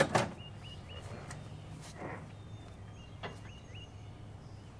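A few sharp clicks and knocks, the loudest two right at the start, over a steady low hum, while a bird repeats short chirping calls in small groups.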